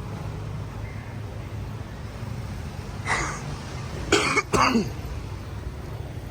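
A man coughs and clears his throat in three short bursts, the last two a second after the first and loudest, over a steady low background hum.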